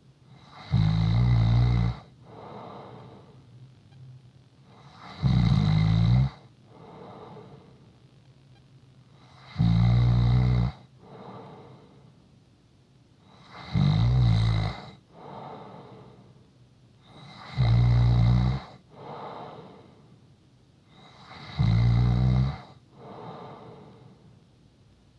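A person snoring steadily: six loud snores about four seconds apart, each followed by a softer breath.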